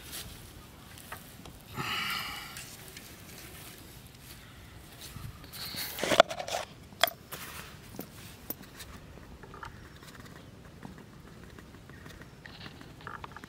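Hand handling of a plastic jar as its lid is worked open, with a few sharp clicks and knocks about six seconds in and small ticks after. A short high-pitched call, like an animal's, sounds about two seconds in.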